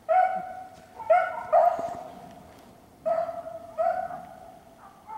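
Beagle baying on a rabbit's track: five drawn-out bawls at a steady pitch, each trailing off, the hound giving tongue as it runs the rabbit alone.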